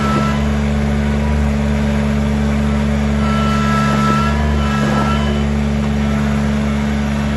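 Kubota BX2660 sub-compact tractor's three-cylinder diesel engine running steadily as the tractor creeps across gravel, with a high whine that comes in briefly about three seconds in.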